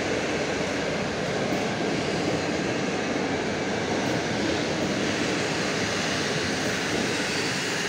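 PKP Intercity passenger coaches rolling past on the track: a steady rushing rumble of wheels on rail.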